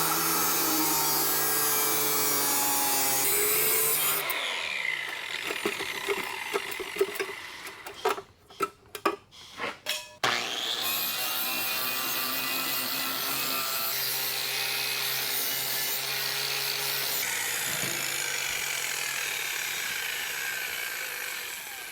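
Hand-held electric power tool cutting the sheet steel of a truck cab's transmission tunnel. It runs steadily for about four seconds, works unevenly with a few short bursts around the middle, then runs steadily again for about eleven seconds, easing off just before the end.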